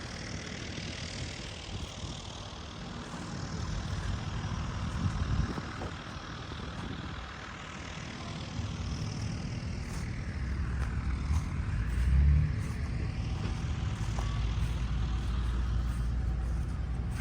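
Engines of old machinery running, a low steady drone that grows stronger about ten seconds in, with a brief louder swell around twelve seconds.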